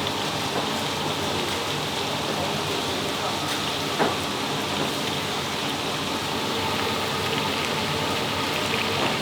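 Crispy beef patties frying in oil: a steady sizzling hiss, with one sharp click about four seconds in.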